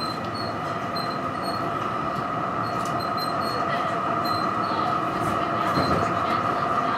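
Melbourne tram in motion, heard from inside the car: running noise of the wheels and motors with a steady high whine that grows gradually louder.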